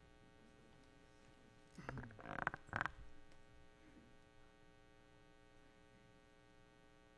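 Steady electrical mains hum, with a brief louder sound about two seconds in.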